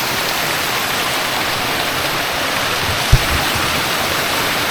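Steady rush of flowing water from a mountain stream, with one brief low thump about three seconds in.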